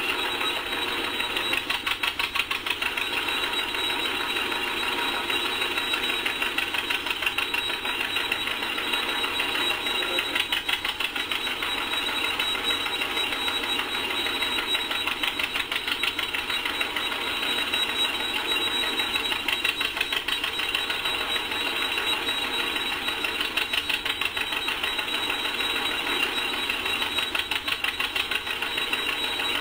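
A 1947 John Deere D's two-cylinder engine, converted to LP, popping steadily under the load of belt-driving a threshing machine. The Keck-Gonnerman thresher clatters along with it in a fast, even rhythm.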